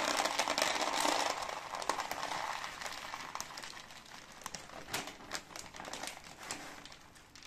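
Small dry kitten kibble poured from a plastic bag into a clear plastic tub: a dense rattling patter for about the first two seconds, thinning into scattered pellet clicks and crinkles of the bag that fade toward the end.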